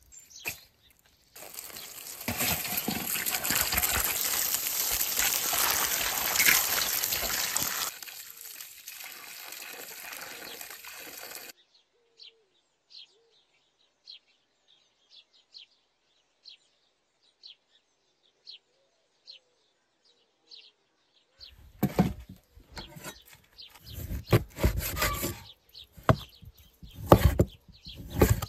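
A loud, steady noise for about ten seconds at the start. Then near quiet with faint short bird chirps. Then, for the last several seconds, a kitchen cleaver chopping pork belly on a wooden cutting board in irregular strokes.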